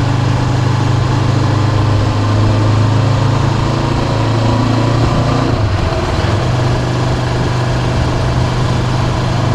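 Honda CB500X's 471 cc parallel-twin engine running, picked up by a camera on the motorcycle. About halfway through its pitch dips and wavers, then settles back to a steady note.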